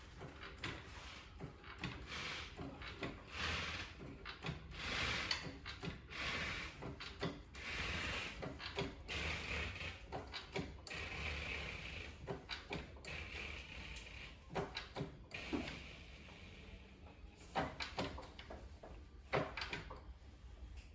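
Car being lifted with a floor jack: repeated clicks, knocks and scraping, pulsing about once a second through the first half, then scattered clicks.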